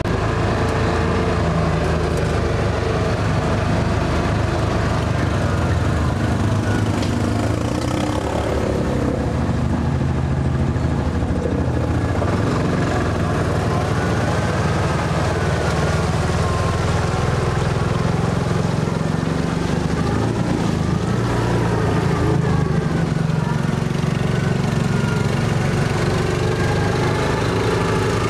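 Yamaha Rhino side-by-side utility vehicle's engine running steadily while driving along a dirt trail, its pitch rising and falling with the throttle in the second half.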